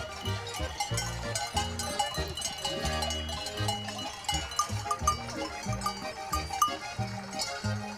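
Background traditional folk music with a steady beat and a bass that alternates between low notes, with bell-like ringing on top.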